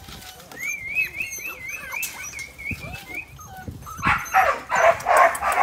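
Australian Shepherd puppies vocalising: a long, high, wavering whine, then a quick run of rough yapping barks about three a second near the end, louder than the whine.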